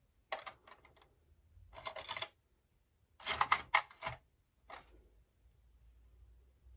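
Plastic pens clicking and clattering as a different-coloured pen is picked out, in four short bursts of clicks, the loudest a little past the middle.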